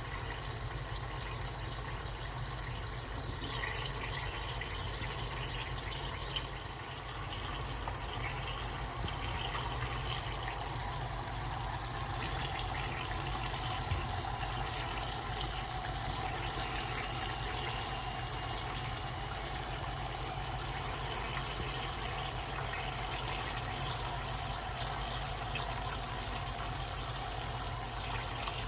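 Dry ice sublimating in water, bubbling and fizzing steadily.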